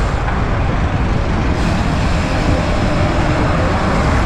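Steady rushing noise of riding a road bicycle beside traffic: wind on the microphone and road noise, heaviest in the low end, with passing vehicles.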